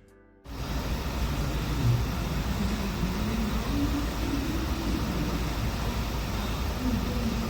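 A motor vehicle running, a steady rumble with road or drivetrain noise that starts suddenly about half a second in.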